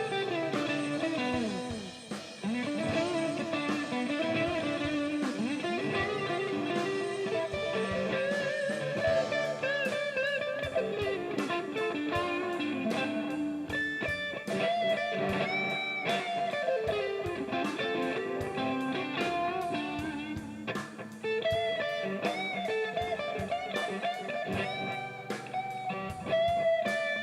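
Music: an electric guitar plays a blues-style lead line full of bent, wavering notes over steadier lower notes.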